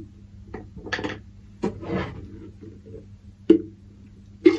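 Rustling and knocking of gear being handled and packed into a sports bag, in short separate bursts, with a sharp click about three and a half seconds in. A louder rushing noise starts at the very end, over a low steady hum throughout.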